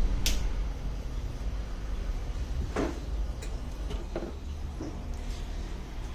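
A few light clicks and taps from tools and tablet parts being handled during repair work, over a steady low hum.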